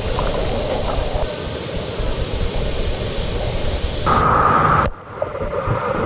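Steady rushing roar of a waterfall's falling water. It changes abruptly about four seconds in, and again a second later.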